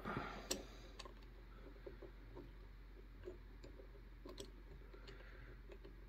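A few faint, scattered clicks from a disc detainer pick turning the discs inside an Anchor Lås disc detainer padlock core.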